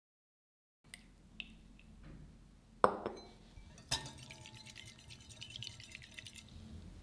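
A wire balloon whisk beating egg yolks and vegetable oil in a glass mixing bowl, its wires ticking rapidly against the glass for a couple of seconds. Before the whisking come a few small clinks and one sharp glass clink, the loudest sound, about three seconds in.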